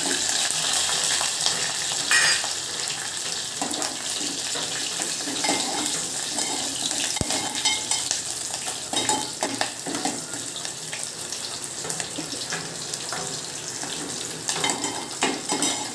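Hot oil sizzling in a small steel pot as garlic, curry leaves and green chillies fry in a mustard-seed tempering, with a steel spoon stirring and now and then knocking against the pot. The sizzle is strongest at the start, just after the chillies go in, and eases a little later on.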